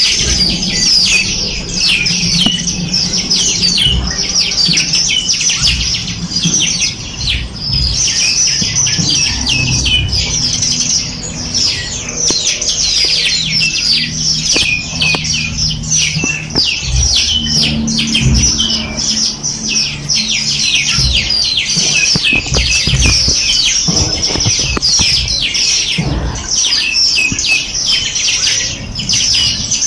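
Dense chorus of many small songbirds, overlapping rapid high-pitched chirps and trills with no pause. A fainter low sound lies underneath.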